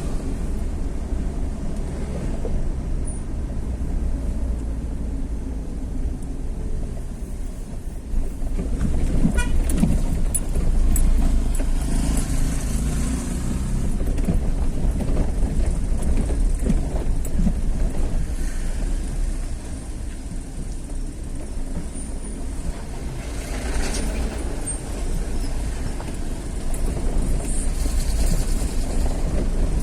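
Motor vehicle running along a road, with a steady low rumble of wind on the microphone; it gets louder from about eight seconds in.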